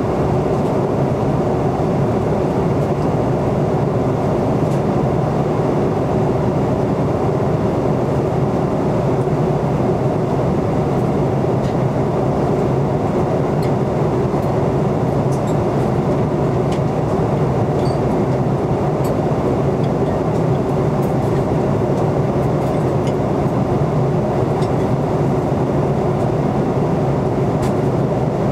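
Jet airliner cabin noise in flight: the steady, even drone of the engines and the air rushing past the fuselage, heard from inside the cabin.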